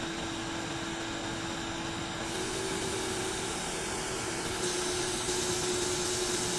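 Small electric vacuum motor running with a steady hum and a rushing hiss; the hiss grows louder twice, about two and five seconds in.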